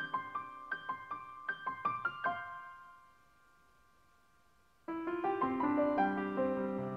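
Background piano music: a run of notes that dies away about three seconds in, leaving near silence for about two seconds, then the piece starts again abruptly.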